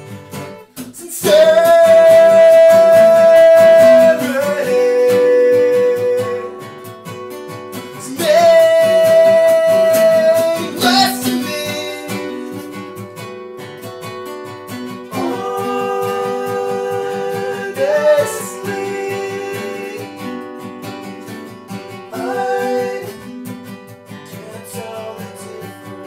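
Two acoustic guitars strumming while a voice sings long held notes. The loudest notes are held for about three seconds just after the start and again about eight seconds in, each stepping down to a lower note, with quieter sung phrases later.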